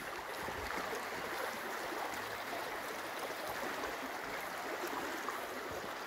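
Shallow stream running over stones, a steady gentle rushing of water.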